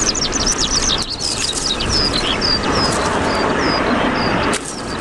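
Songbird calling: a quick run of short, high, falling chirps that slows to evenly spaced single notes, over a steady rushing background noise.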